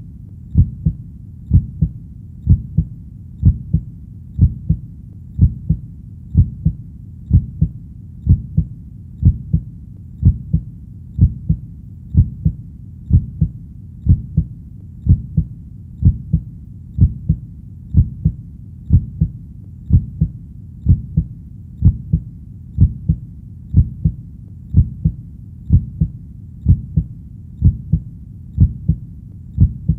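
Heartbeat recording: a steady low lub-dub, a double thump about once a second, repeating evenly throughout.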